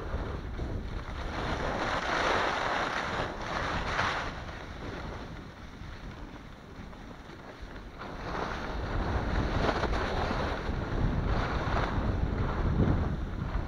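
Skis hissing and scraping over crunchy packed snow through a series of turns, coming in swells with a quieter stretch midway, over a low rumble of wind on the microphone.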